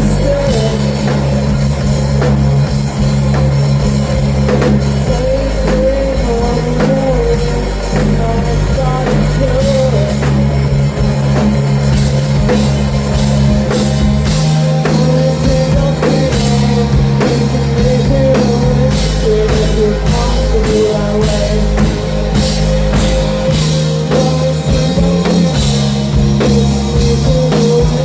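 Rock band playing loudly live: drum kit, bass and guitar, with a wavering melodic line over sustained low notes that change every second or two. Cymbal hits grow denser about halfway through.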